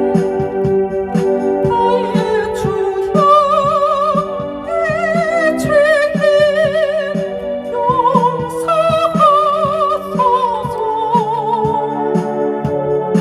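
Electronic keyboard playing a hymn: a wavering lead melody with vibrato over held chords and a steady low beat.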